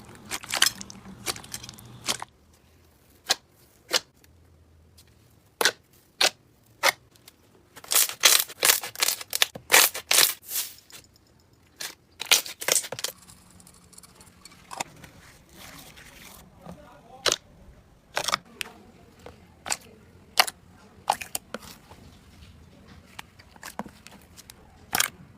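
Slime being squeezed and poked, giving a series of sharp pops and crackles. Scattered at first, the pops come thick and fast in a burst about a third of the way in, then thin out again.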